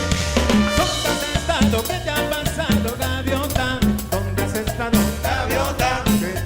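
Latin dance music in a salsa style, with a steady beat carried by drums and bass.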